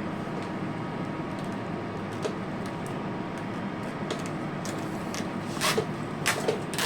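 Steel wire-rope strands being worked by hand into an eye splice: scattered light metallic clicks and scrapes that grow louder in the last two seconds, over a steady background hum.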